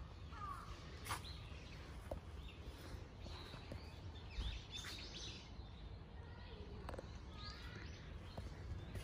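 Small birds chirping in the trees, many short sweeping chirps scattered throughout, over a steady low background rumble. A few sharp clicks are heard, the loudest about four and a half seconds in.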